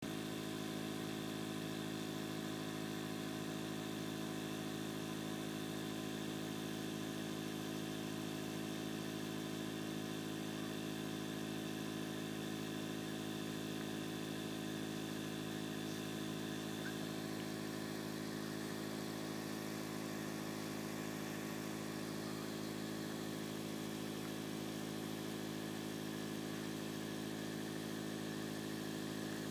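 Steady low mechanical hum with several fixed tones, unchanging throughout.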